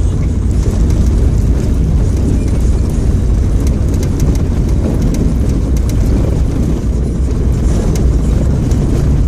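Daihatsu Terios driving on a gravel road, heard from inside the car: a steady low rumble of engine and tyres on gravel, with occasional faint ticks.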